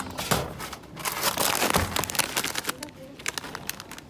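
Plastic crisp packet crinkling as it is handled and lifted out of a vending machine's pickup bin, loudest from about a second in to nearly three seconds, with a couple of light knocks near the start.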